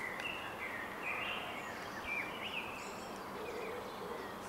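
Small birds chirping in short calls that rise and fall in pitch, over a steady outdoor hiss.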